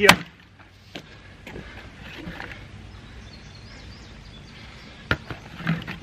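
A single splitting-maul blow into a firewood round held in a tire, a sharp chop at the very start. It is followed by a few lighter knocks of split wood being moved, with a sharper knock about five seconds in.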